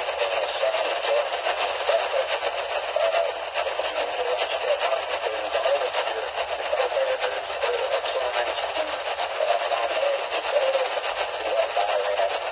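A radio receiver picking up a weak, noisy broadcast: a steady hiss and crackle with muffled, unintelligible sound underneath, thin and tinny like AM reception.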